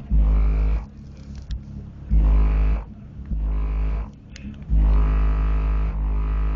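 Car subwoofers (10-inch Pioneers on a 500-watt amp) pounding out deep bass notes of a hip-hop track at high volume, enough to flex the car's windows. Long low hits come at the start and about two seconds in, then one held from a little before five seconds on, with the song's higher parts faint above.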